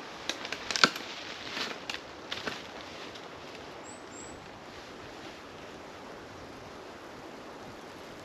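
A quick cluster of sharp clicks and knocks in the first few seconds, then a steady outdoor hiss, with a faint high chirp about four seconds in.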